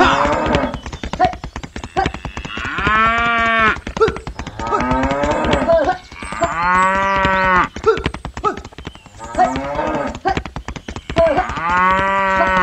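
Cattle mooing: three long moos, each rising and then falling in pitch, with a rapid run of clicks underneath.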